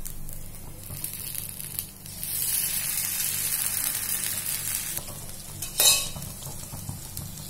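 Idli batter sizzling in hot oil in the wells of a paniyaram pan as more batter is ladled in. The hiss swells about two seconds in, and a brief, sharper hiss comes near the end.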